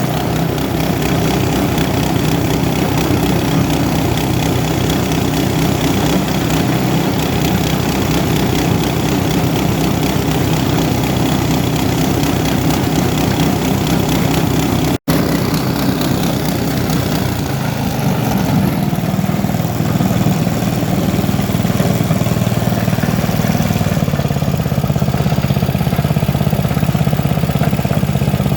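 Foam shredding machine running steadily on test. It cuts out for an instant about halfway, then runs on with a deeper tone.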